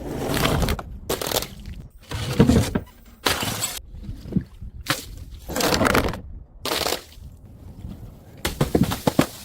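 Glass bottles smashing, one after another: about eight separate crashes of shattering glass with short gaps between them.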